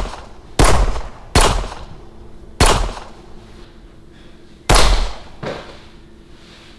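Four pistol shots at uneven spacing, the last coming about two seconds after the third, each followed by a short ringing tail.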